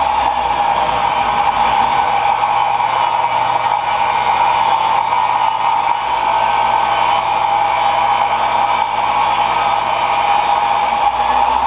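Table saw running steadily with its motor's high whine, ripping pine boards to width.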